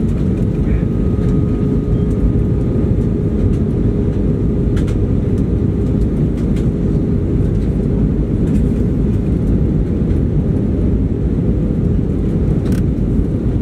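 Steady rush of airflow and engine noise inside the cabin of an Airbus A320 on descent, with a steady hum beneath it.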